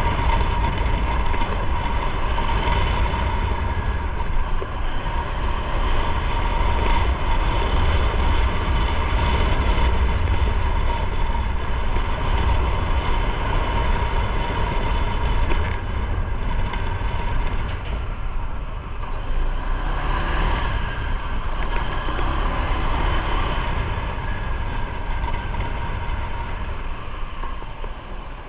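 Motorcycle on the move, recorded from the bike: steady engine and road noise under heavy wind rumble on the microphone, easing a little near the end.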